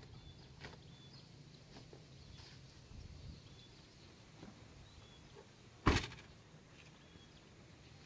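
An SUV's rear tailgate swung down and slammed shut: one sharp loud thud about six seconds in.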